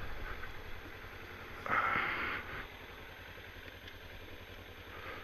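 Kawasaki Ninja 300's parallel-twin engine idling with a steady low pulsing, heard over a helmet microphone, with a short rush of noise about two seconds in.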